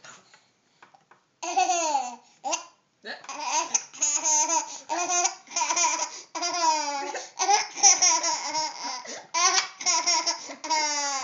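A baby laughing in a run of high-pitched bursts, each falling in pitch, starting about a second and a half in after a short pause.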